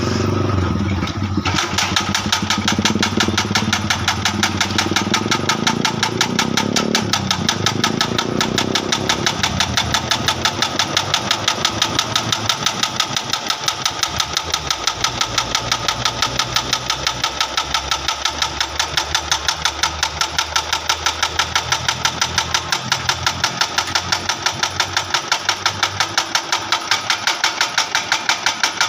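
Excavator's hydraulic breaker hammering damaged road asphalt: a rapid, perfectly even pounding starts about a second and a half in and keeps on steadily, over the excavator's diesel engine running.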